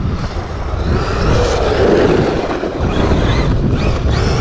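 Arrma Outcast 8S EXB RC truck's brushless electric drivetrain whining as it is driven off-road. The pitch rises and falls in short glides as the throttle is worked, over a constant rough noise.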